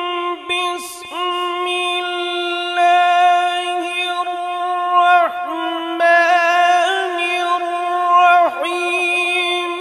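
A man reciting the Quran in melodic tajweed style into a microphone, drawing out long held notes at a steady pitch with ornamented turns. The notes break briefly for breath a few times.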